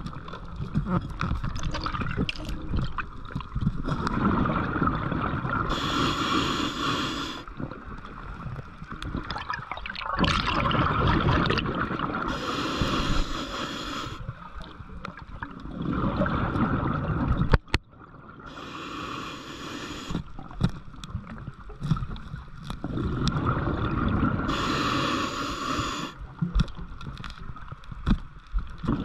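Scuba diver breathing underwater through a regulator: a bubbling rush on each exhale and a short hiss on each inhale, repeating about every six seconds. A single sharp click comes about two-thirds of the way through.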